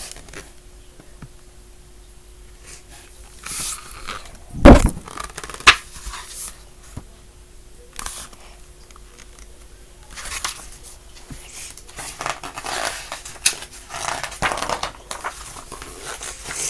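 Paper rustling and handling noise as a picture book's pages are turned and the book is handled right at the microphone, with a sharp bump about five seconds in.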